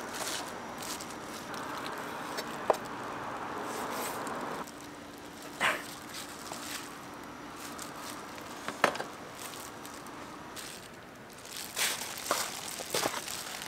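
Food-stall kitchen work: a few sharp knocks and clatters. A steady rushing noise runs for a few seconds and cuts off suddenly, then a low hum.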